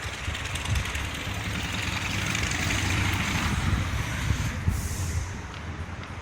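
A streetcar passing, its running noise swelling to a peak and fading again, with a short hiss about three-quarters through. Wind buffets the microphone with a low rumble.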